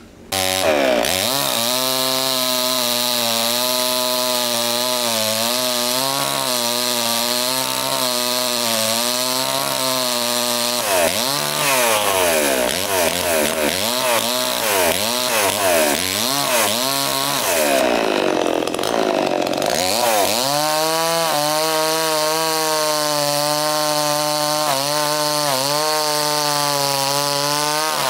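Two-stroke chainsaw running at high revs while cutting into a tree trunk, coming in abruptly at the start. Its pitch wavers as the chain bites into the wood, sagging and picking back up a couple of times under load.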